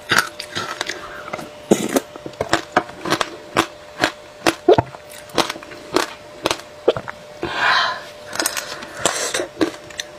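A mouthful of shaved ice being crunched and chewed close to a clip-on microphone: a rapid, irregular run of sharp crunches and crackles. A breathy rush comes about seven and a half seconds in.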